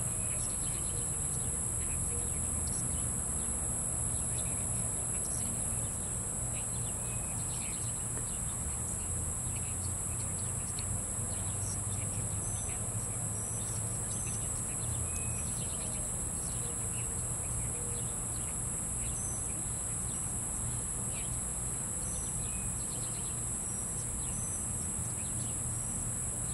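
Outdoor ambience dominated by a steady, unbroken high-pitched insect chorus, with short bird chirps scattered through it and a low background rumble.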